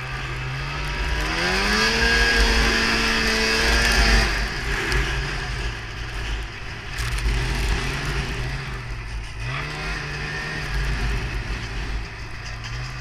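Polaris Indy Trail 500 snowmobile's two-stroke engine revving up about a second in and held at high revs, easing off after about four seconds, then rising and falling with the throttle. Wind rumbles on the microphone throughout.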